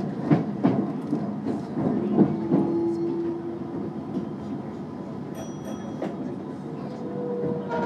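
Keikyu train running on the rails: wheels clack over rail joints about three times a second for the first couple of seconds, then settle into a quieter, steady rumble.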